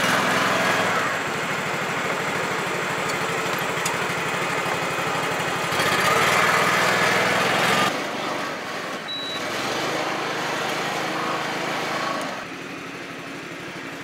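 Engine of an Iseki PZ73 seven-row riding rice transplanter running steadily as the machine drives. It grows louder about six seconds in, then falls off about eight seconds in and again near the end.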